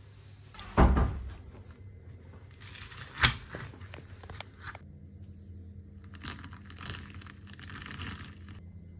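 Foley props being handled: a heavy thump about a second in, a sharp crack a couple of seconds later, then a run of crackling and crumpling noises.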